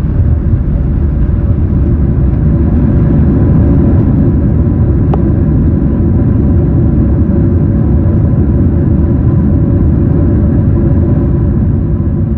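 Airliner cabin noise during landing: a loud, steady low rumble with a steady engine hum above it, a faint click about five seconds in, and the rumble easing slightly near the end.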